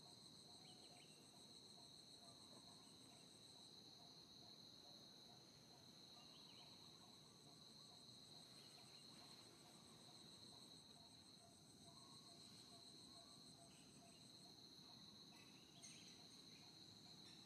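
Faint, steady chorus of insects trilling: several continuous high tones, one of them pulsing rapidly, over a low background hiss.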